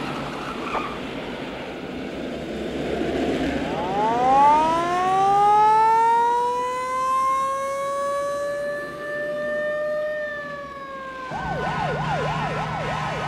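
Emergency vehicle siren over street traffic noise: it winds up from a low pitch to a long held wail, then switches to a fast up-and-down yelp of about three cycles a second near the end.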